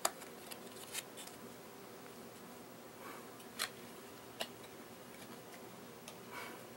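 Quiet room tone with a handful of faint, scattered clicks and a couple of brief soft rustles, like small hand handling close to the microphone.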